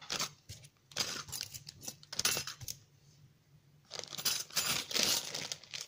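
Small clear plastic bag crinkling and rustling as gold metal album corners are slipped back into it, with light metallic clinks. The rustling comes in irregular bursts, with a pause of about a second midway.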